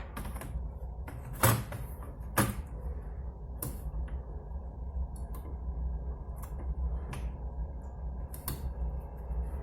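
Plastic top case of a Lenovo G50-30 laptop being fitted onto the chassis, giving a few sharp plastic clicks and knocks. The two loudest come about one and a half and two and a half seconds in, with fainter ticks later.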